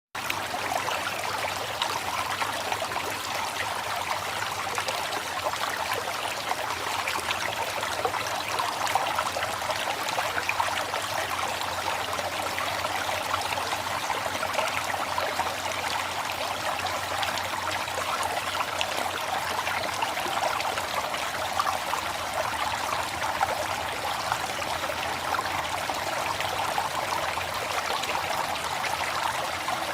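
River water flowing in a steady rush, with a fine bubbling, trickling texture.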